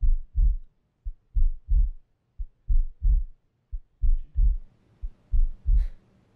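Slow, heavy heartbeat sound effect: low thumps in repeating groups, a soft thud followed by a strong double beat, about every 1.3 seconds. A faint hiss comes in about four seconds in.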